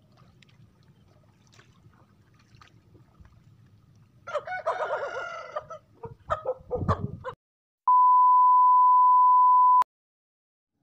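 A rooster crows about four seconds in, followed by a few short clucks, over a faint low background rumble. Then a loud, steady electronic beep tone sounds for about two seconds and cuts off suddenly.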